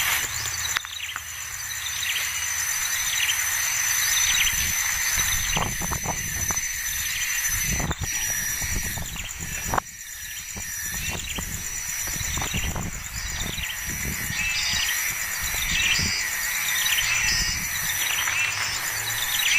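Young bird chirping over and over in short high calls, over a steady high insect buzz, with low rumbling and a few knocks.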